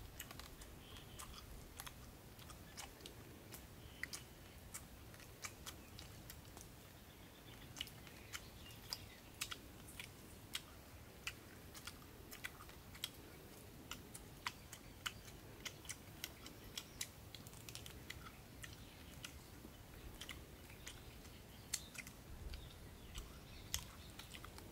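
Close-up chewing and biting of crispy fried tokay gecko: irregular, sharp crunchy clicks, several a second in places, over a faint background.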